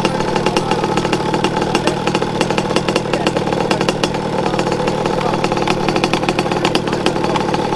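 Small two-stroke petrol engine of a large-scale RC car running steadily, a fast even putter over a steady drone.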